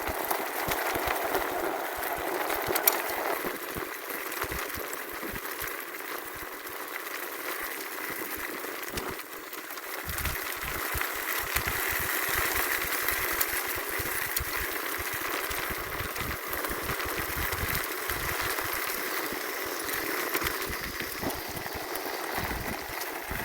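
Electric bike with a 48 V 1500 W rear hub motor being ridden: a steady motor whir with tyre and rattle noise, and irregular low wind buffeting on the microphone.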